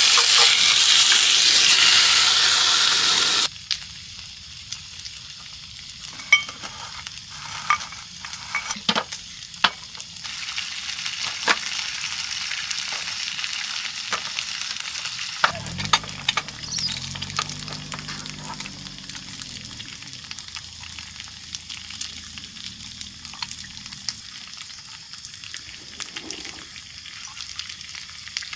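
Meat sizzling loudly in a cast-iron skillet, stopping abruptly about three and a half seconds in. A quieter sizzle continues, with sharp clicks of a knife on a wooden cutting board, and a low hum sets in about halfway through.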